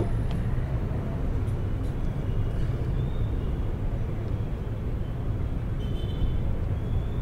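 Steady low rumble of outdoor city ambience, with a few faint short high chirps near the start and again about six seconds in.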